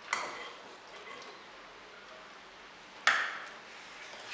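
Metal spoon knocking against a glass bowl twice: once at the start and again, louder, about three seconds in, each knock ringing briefly.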